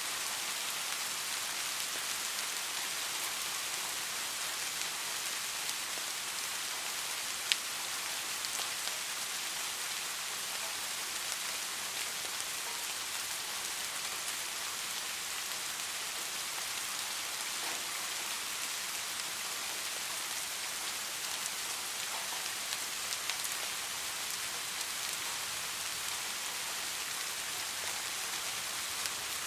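Steady rain falling, an even hiss with scattered drop ticks and one sharper tap about seven seconds in.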